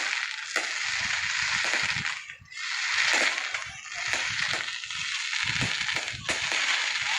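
Fireworks crackling, a dense run of sharp pops and crackles with some deeper booms mixed in, easing off briefly about two seconds in before building again.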